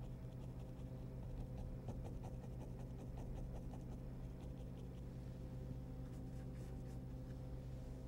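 Bristle brush dabbing paint straight onto a canvas: quiet, irregular taps and scratches of the bristles, over a steady low hum.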